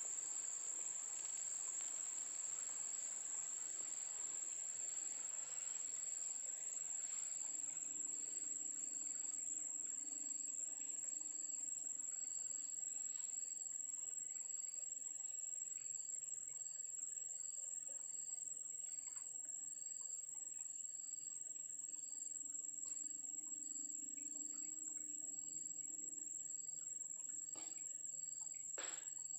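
Insects trilling: one steady high-pitched drone, with a second insect chirping about once a second. A few faint clicks near the end.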